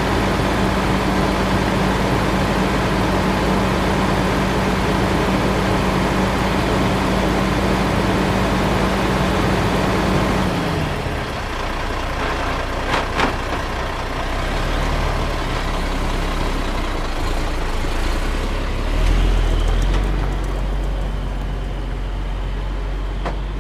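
Heavy diesel engine running steadily, then dropping in pitch about ten seconds in and settling into a lower run. There are a couple of sharp clicks a few seconds later and a brief low surge near the end.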